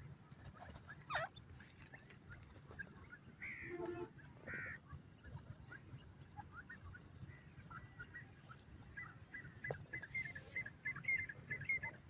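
Grey francolins calling softly and faintly: a quick falling note about a second in, two short calls around four seconds in, then a run of quick high chirps in the last few seconds.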